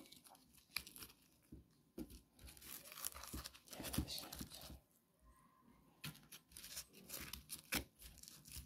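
Fingers pressing salted lemon quarters down into a plastic tub: faint, irregular squishing and crackling with scattered small knocks. The lemons are being packed tight to squeeze out their juice for preserving.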